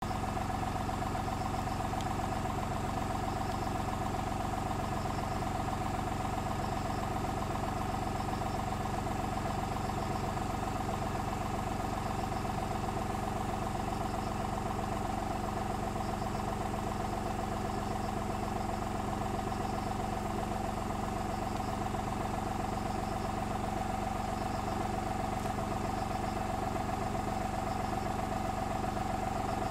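Car engine idling steadily, an even hum that does not rev or change.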